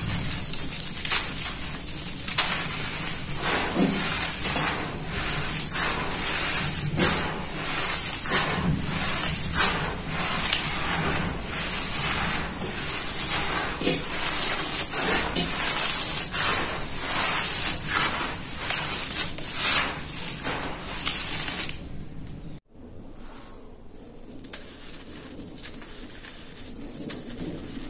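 Dry, gritty red dirt crunching and crackling as hands scoop, squeeze and let it pour back onto the floor, a dense rustle of small grains full of little clicks. About 23 s in it cuts off abruptly and gives way to a quieter scraping and crumbling of red-dusted chunks.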